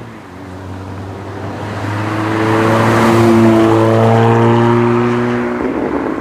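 Civic Si / Integra 1.5-litre turbo four-cylinder through an MBRP 3-inch cat-back dual-exit exhaust as the car drives past: a steady exhaust note that grows louder to a peak mid-way, then fades, dropping slightly in pitch near the end.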